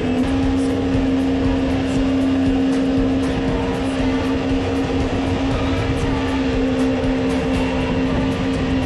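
Mini jet boat's 1053cc Yamaha four-stroke engine and jet drive running hard at a steady pitch, with water rushing under the hull.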